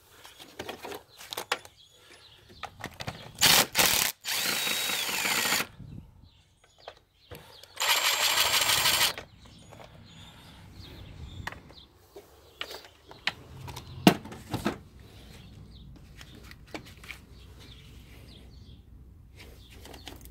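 A handheld power tool runs in two bursts, one about two seconds long and one about a second, working on the engine's fasteners; its pitch falls away during the first burst. Scattered light clicks and a sharp metallic tap of tools on the engine come between and after.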